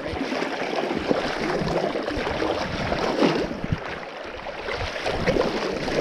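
Flowing river water rushing and splashing around a wading angler's legs and landing net, a steady wash with irregular surges.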